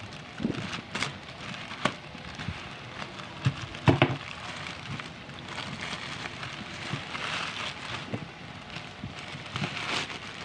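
Plastic courier pouch crinkling and rustling as it is handled, with a few sharp knocks, the loudest about four seconds in.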